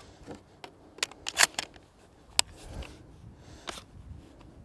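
Mossberg Maverick 88 pump-action 12-gauge shotgun being handled and loaded with slugs: a few sharp clicks and clacks, a quick run of four about a second and a half in, then single ones near the middle and near the end.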